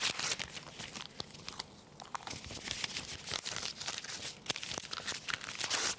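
Magazine paper being ripped and crumpled by hand and bitten, a run of irregular crackles and rips that thins out briefly about two seconds in and then picks up again.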